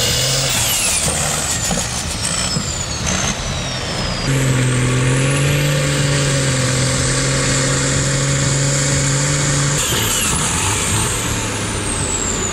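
Tractor diesel engines running hard at high revs under heavy pulling load, in a tractor tug-of-war. A steady, strong engine note holds through the middle, with high whistling tones that slide down in pitch, and the sound changes abruptly about four seconds in and again near ten seconds.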